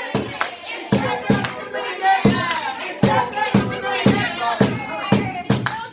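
Music with a steady beat, about three hits a second, with several voices singing and calling out over it.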